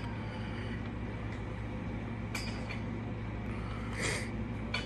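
Steady low background hum with a couple of faint, short clicks, about two and a half seconds in and again about four seconds in.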